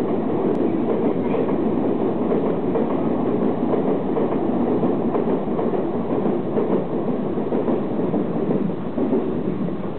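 253 series Narita Express electric train pulling out of the station, with a steady running noise of the train moving along the track.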